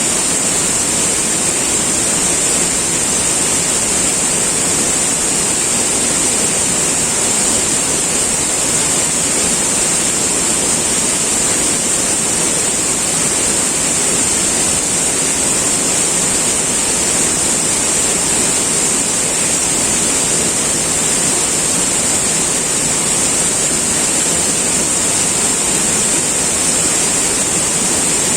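River water flowing in a steady, unbroken rush, with a strong high hiss.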